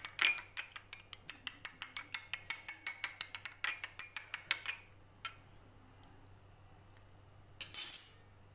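A metal spoon clicking rapidly against a small glass bowl as yogurt is stirred smooth, about seven taps a second. The tapping stops about five seconds in, followed by one more tap and, near the end, a short louder scrape.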